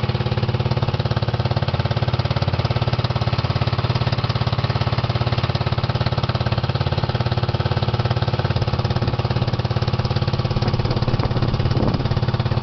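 Small engine of a motorized outrigger boat (bangka) running steadily under way, with a fast, even pulsing beat.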